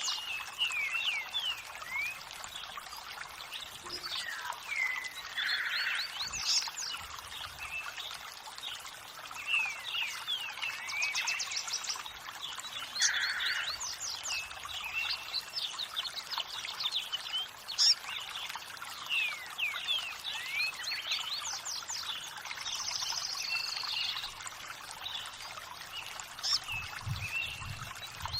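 Running water trickling steadily, with several birds chirping and whistling over it in frequent short calls.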